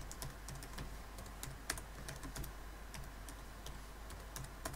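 Faint computer keyboard keystrokes, clicking in short irregular runs as a password is typed twice at a command prompt.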